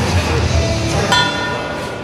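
Music playing in a sports hall, and about a second in a ring bell strikes once and rings out to start the round.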